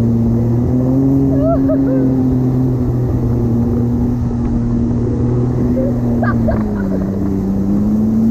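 Jet ski engine running at a steady high speed while towing a rider on an inflatable sea biscuit, its pitch dipping briefly about seven seconds in and then coming back up.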